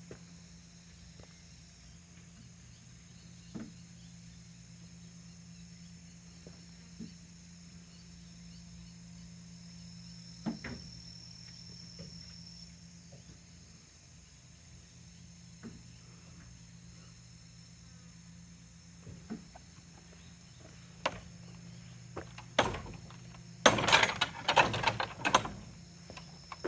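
Insects trilling steadily with a low hum beneath, scattered single knocks, then a burst of loud rattling knocks near the end.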